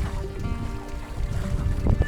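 Background music of held, changing notes over low wind rumble on the microphone.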